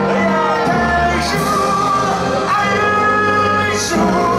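Music with singing, the voices holding long notes.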